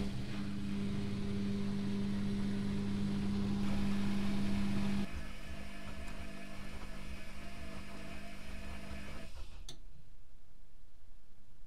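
Privileg Classic 30612 (Electrolux-built) front-loading washing machine filling at the start of its wash: a steady mains hum over rushing water. The hum drops in level about five seconds in, then cuts off with a click near the end, leaving a quieter low rumble.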